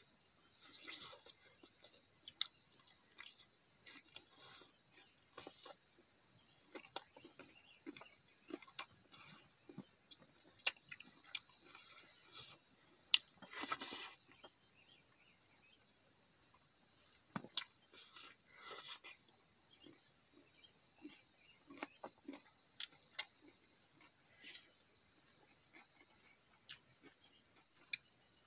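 Faint steady high-pitched chirring of insects throughout, with scattered soft clicks, smacks and rustles of people eating by hand from a banana leaf.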